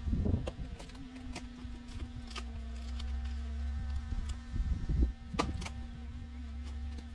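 Mini excavator's diesel engine running with a steady droning hum, with scattered clicks and knocks and heavier rumbles about half a second in and around five seconds in.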